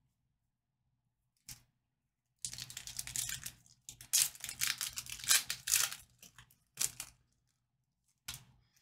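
A trading-card pack wrapper being torn open and crinkled: a few seconds of tearing and rustling, with a short tap shortly before and another near the end.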